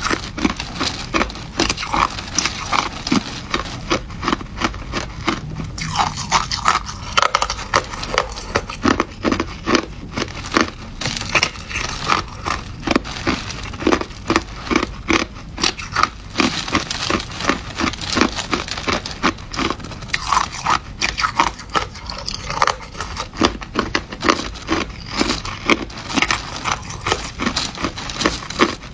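Hard crushed ice being bitten and chewed close to the microphone: dense, steady crunching with many sharp cracks.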